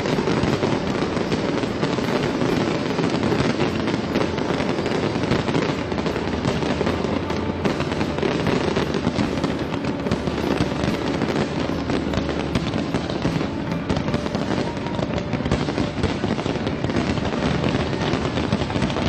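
Aerial fireworks shells bursting in quick succession: a dense, unbroken crackle and popping from many bursts at once.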